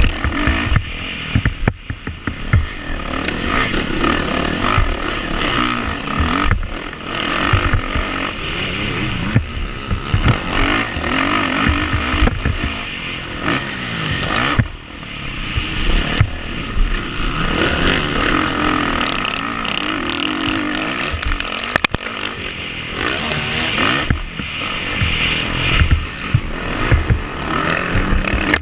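Motocross dirt bike engine revving hard and dropping back as the rider races through turns and jumps, with choppy wind buffeting and clatter on a helmet-mounted camera.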